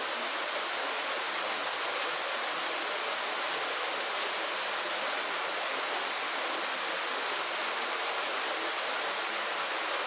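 Heavy rain falling in a steady downpour: a dense, even hiss with no separate drops standing out.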